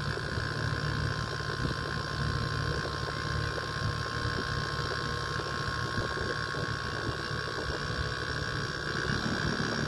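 Inverter air conditioner's outdoor-unit compressor running steadily: a low hum with a faint whine above it. It is pumping up head pressure during a compression test.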